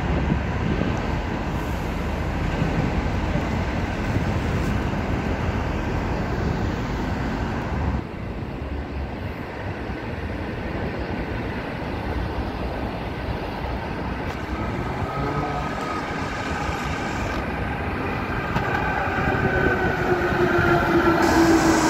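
Type E metro train approaching on the open-air track and pulling into the station, growing louder toward the end. In the last few seconds its motors whine in steady tones that slide slowly down in pitch as the train slows.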